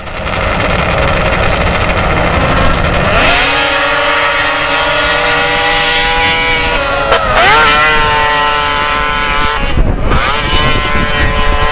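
Racing snowmobile engines at full throttle. About three seconds in, a high, steady engine whine comes in; its pitch dips and climbs back up twice.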